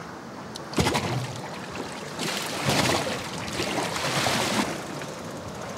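Sea water sloshing and splashing around a small boat, with a sudden sharp splash just under a second in and a louder rush of water from about two seconds until nearly five.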